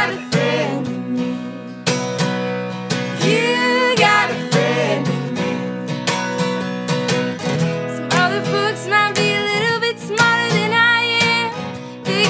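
Music: a song with strummed acoustic guitar and a singing voice.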